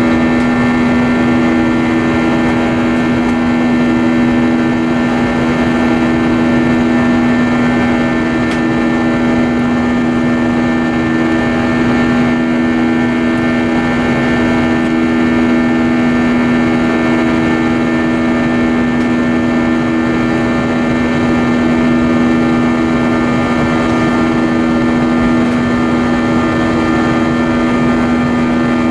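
Cabin noise of an Airbus A320-232 in flight, heard beside the wing: its IAE V2500 turbofan engines running at a steady setting with rushing air, a constant drone carrying a strong low hum and a row of higher steady tones.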